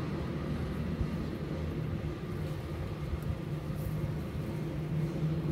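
Steady low rumble of outdoor urban background noise with a faint, even hum running through it.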